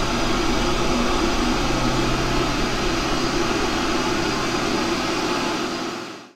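A loud, steady droning noise: hiss with a low hum underneath, fading out quickly near the end into dead silence.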